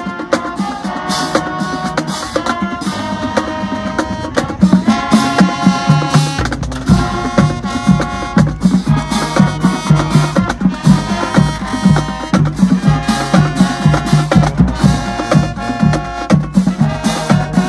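High school marching band playing: brass chords in short repeated phrases over a steady drum beat. About six seconds in, the low end fills in and the drum hits grow louder.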